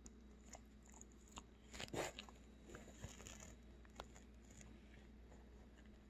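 Near silence broken by a dog shifting its body against a person on a fabric couch: a brief rustle about two seconds in, then a few soft scuffs and clicks.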